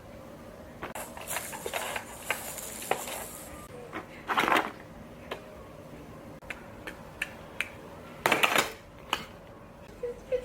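Dishes and a spoon being handled: scattered clicks and clinks, a rustle lasting about two seconds starting a second in, and two louder clatters, about four seconds apart.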